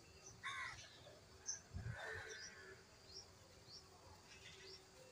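A steel lid set down over an iron tawa with a soft knock about two seconds in. Faint bird chirps sound throughout.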